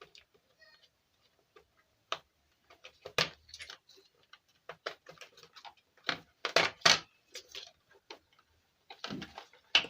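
Irregular clicks and knocks from a keyboard's circuit board and tools being handled during a repair, with the loudest cluster a little past the middle.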